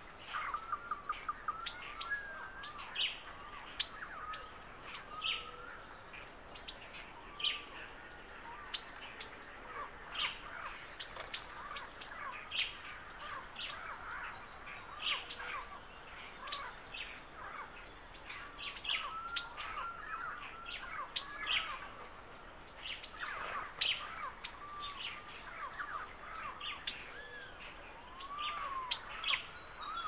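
Many birds chirping and calling at once in a morning chorus. Short, sharp chips come in quick succession throughout, over softer, repeated short whistled notes.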